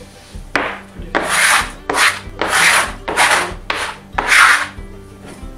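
About six quick rubbing and scraping strokes across a flour-dusted kitchen countertop, as excess flour and dough are worked and cleared off the surface.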